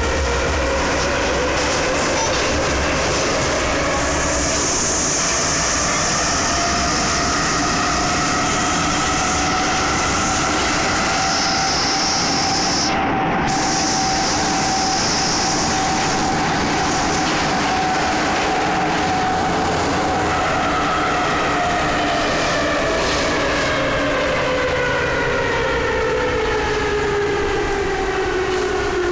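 Soviet-built 81-71 metro car under way in the tunnel, heard from inside the carriage. The traction motor whine rises in pitch as the train gathers speed, holds steady for several seconds, then falls as the train slows. Steady wheel and tunnel rumble and hiss run underneath.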